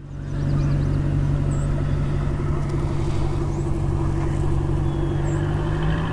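Small ferry boat's motor running with a steady drone.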